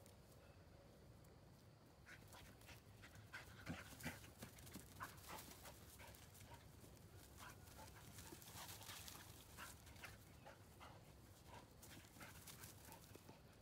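Faint panting of a small dog, with quick scuffling of feet in dry straw as it darts about in play, starting about two seconds in.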